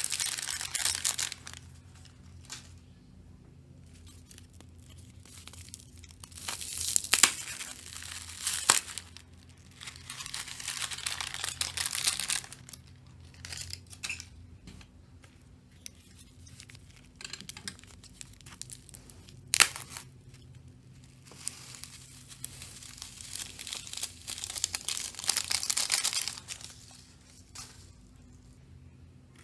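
Slime being squeezed and stretched by hand, crackling and tearing in bursts of a few seconds, with a few sharp pops.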